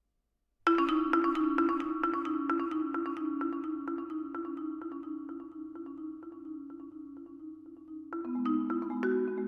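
Mallet percussion ensemble of marimbas and vibraphones beginning after a brief silence: quick repeated mallet notes over ringing sustained tones that slowly grow softer. Near the end, new lower chords come in.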